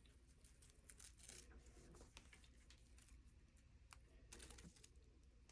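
Near silence with faint rustling and a scatter of light clicks: small hand-handling sounds as flowers and press materials are moved about.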